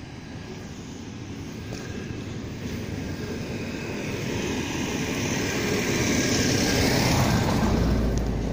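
TCDD DE33000 diesel-electric locomotive approaching and slowing at a level crossing, its diesel engine drone growing steadily louder, with a deep rumble coming in near the end as it draws close.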